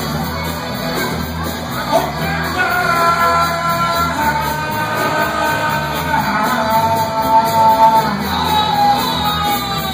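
Live band music from guitars, bass and drums, with a voice holding long notes from about two seconds in, in the closing bars of the song.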